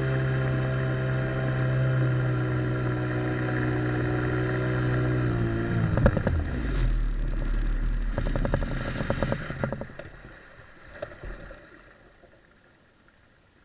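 Johnson outboard jet motor pushing an inflatable boat, running steadily with its note easing slightly down. About six seconds in the engine note drops sharply, followed by a few seconds of rough knocking, and then the sound fades out to near silence.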